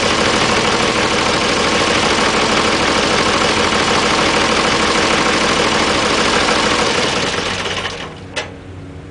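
Oliver tractor engine running loud while working the front loader. It drops to a much quieter run about eight seconds in, with a single sharp click just after.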